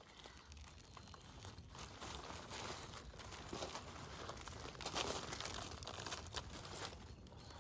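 Dry fallen leaves rustling and soil and roots crumbling and tearing as a clump of snowdrop bulbs is worked loose by hand and lifted out of the ground, in irregular crackles, loudest about five seconds in.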